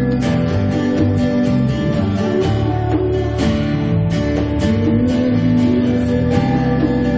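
Live worship band playing: strummed acoustic guitar over bass and drums, keeping a steady beat.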